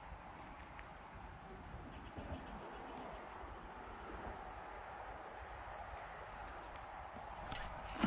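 Faint, steady chorus of insects chirping.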